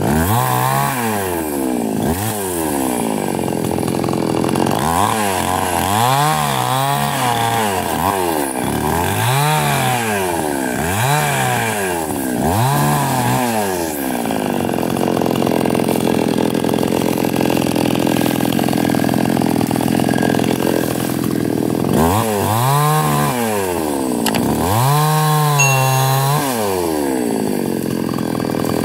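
Small chainsaw revving up and dropping back over and over, about once a second, as it cuts through the branches of a felled tree. For several seconds in the middle it runs at a steady speed, then it revs up twice more near the end.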